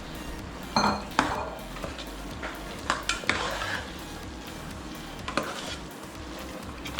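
A metal spoon stirring chicken into an onion and spice masala in a pot, scraping and clinking against the metal several times over a light sizzle.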